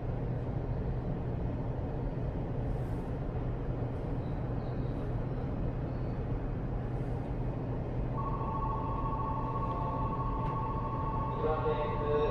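Keikyu 1500-series commuter car standing with its doors open: a steady low hum from the stopped train. About eight seconds in, a steady two-note electronic tone starts, and a voice begins near the end.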